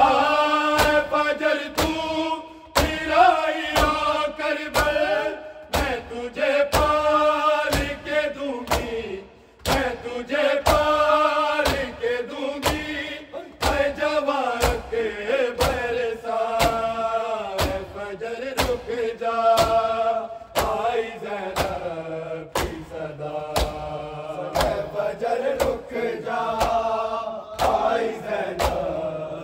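Men chanting an Urdu noha, a mourning elegy, in unison over a steady rhythm of sharp hand slaps on bare chests (matam), about two to three beats a second.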